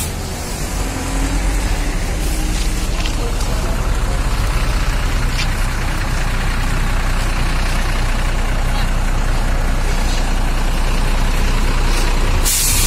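Diesel tour coach engine running close by as the bus pulls in, a steady low rumble that grows louder about a second in. Near the end comes a short, loud hiss of air from the air brakes.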